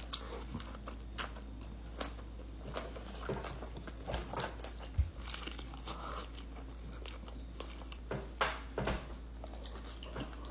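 A person biting into and chewing a juicy bacon cheeseburger: irregular soft wet smacks and clicks of mouth and food.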